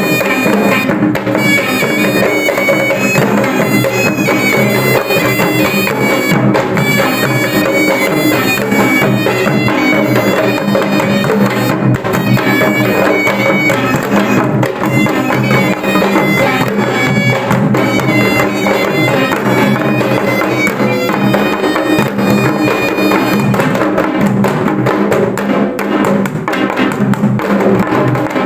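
Background music with a steady beat, a reedy wind-instrument melody over drums.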